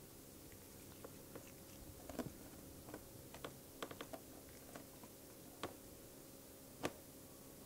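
Quiet room tone with a low steady hum, broken by faint, irregular small clicks and taps, one sharper tap near the end.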